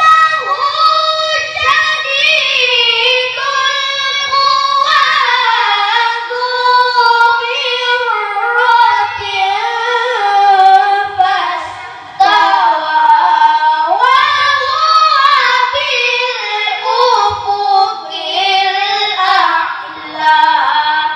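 A boy's high voice reciting the Qur'an in melodic tilawah style: long held phrases with an ornamented, wavering pitch, with a short break about twelve seconds in.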